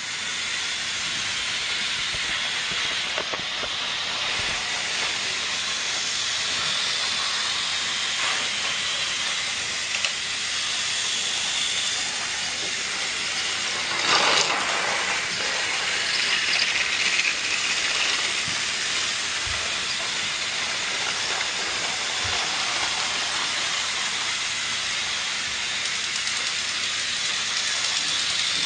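A steady hiss throughout, with a brief louder clatter about fourteen seconds in.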